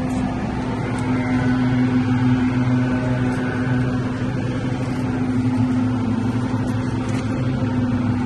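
Petrol leaf blowers running steadily: a constant engine drone with a steady low hum.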